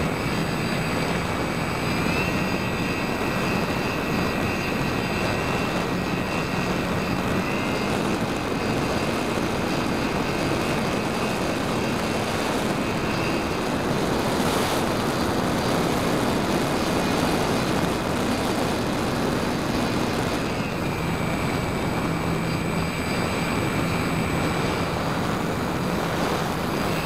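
Radian electric motor glider's brushless motor and propeller running under power, heard from a camera mounted on the fuselage: a steady motor whine over a loud rush of airflow. The whine steps up and down in pitch a few times.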